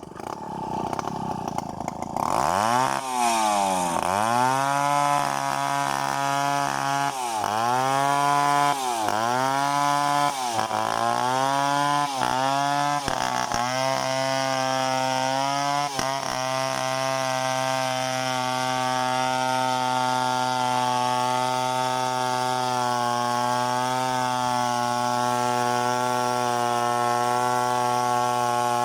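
Chainsaw engine starting up, then revved up and down repeatedly, about one rev every second and a half. From about halfway through it runs steadily at high speed.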